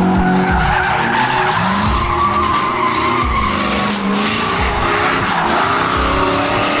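Pickup truck drifting: the tyres squeal continuously while the engine revs rise and fall.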